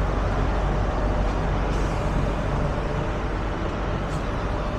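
Heavy diesel truck engine idling steadily, a low even rumble.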